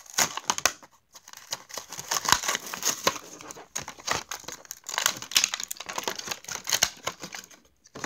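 Blister packaging of a die-cast toy car being torn open by hand: the cardboard backing card ripping and the clear plastic blister crinkling and cracking in irregular bursts, with brief pauses.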